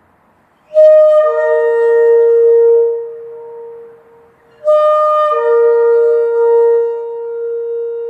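Shofar (ram's horn) sounding two long blasts. Each opens on a brief higher note and drops to a steady lower tone. The first starts just under a second in and fades out about two seconds later; the second starts almost five seconds in and holds on.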